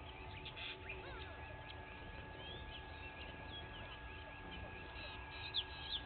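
Many wild birds calling and chirping at once in a morning chorus, with short whistles and rising and falling notes overlapping. A thin steady high tone starts about a second in. A sharp, louder call sounds just before the end.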